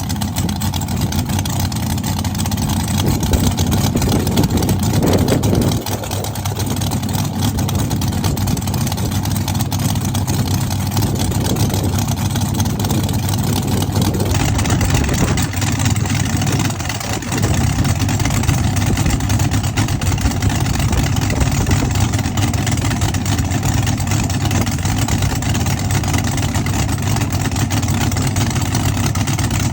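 Drag car's engine running loudly at idle. It is revved up about three seconds in, then drops back; the idle dips briefly again near the middle.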